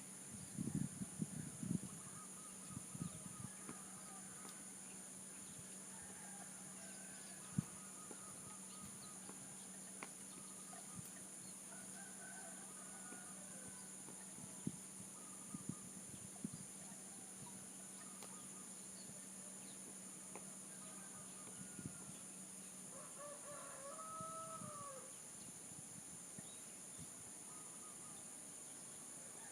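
A rooster crows once near the end, a single call that rises and then falls in pitch, over scattered short bird calls and a steady high insect drone. Dull low thumps come in a cluster in the first couple of seconds and a few more times later.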